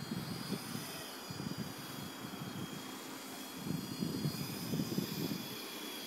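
Electric Blade SR radio-controlled helicopter hovering, its motor and rotor giving a steady high whine, under gusts of wind buffeting the microphone that swell loudest a little past the middle.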